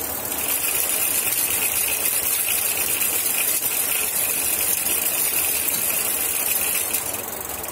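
Electric bicycle's 850 W e-rickshaw hub motor running with no load, driving the chain and spinning the raised rear wheel, a steady high whine; it eases off about seven seconds in.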